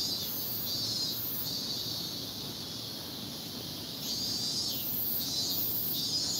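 Insects singing in repeated high-pitched pulsing phrases, two calls taking turns, each phrase lasting about half a second to a second, over a faint low background hum.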